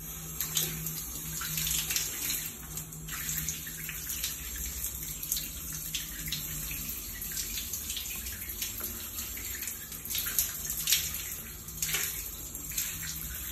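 Shower running in a tiled stall, water spraying onto the tiles with a steady hiss and irregular splashes.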